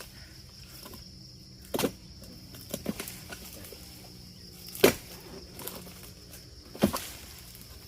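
Sharp knocks from oil palm harvesting work, cutting at fronds and fruit bunches: three loud ones about 2, 5 and 7 seconds in, with a few lighter knocks between. A faint, steady insect buzz runs underneath.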